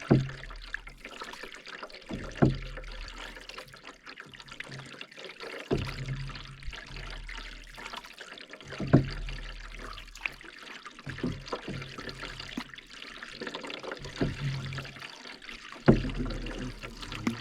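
Canoe paddle strokes in lake water, a splash-and-thump about every two to three seconds, with water trickling and dripping off the blade between strokes.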